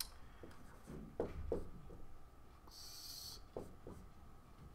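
Marker writing on a whiteboard: a few faint short strokes, with a brief high squeak of the marker tip about three seconds in.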